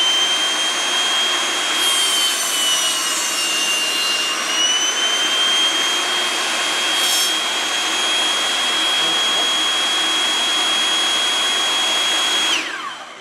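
Rock&Rocker 8-1/2-inch 15-amp dust-collecting table saw running with a steady high whine, crosscutting a 2x4 stud about two seconds in, its pitch sagging only slightly under the cut. Near the end it is switched off and the whine falls away as the blade spins down.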